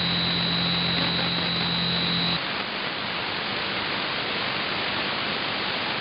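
Shortwave static from a Perseus SDR receiver in AM mode, tuned between stations in the 19-metre band. For the first couple of seconds a steady low hum and a high whistle sit over the hiss, then they cut off suddenly and only the static remains.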